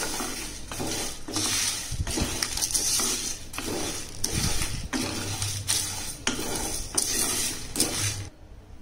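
Wooden spatula stirring and scraping whole spices (coriander seeds, cumin, fennel, dried red chillies and bay leaf) as they dry-roast in a dry nonstick pan. The seeds rattle and scrape across the pan about twice a second. The stirring stops just before the end.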